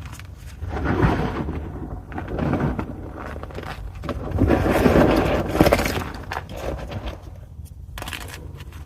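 Pieces of gym chalk (magnesium carbonate) being crushed: dense crunching and crackling in several waves, with the longest and loudest stretch around the middle.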